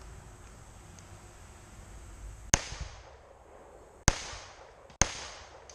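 Three shots from a GSG Firefly .22 LR semi-automatic pistol firing CCI Stinger hyper-velocity rounds. Each is a sharp crack with a short echo: the first comes about two and a half seconds in, and the other two follow a second and a half and then under a second later.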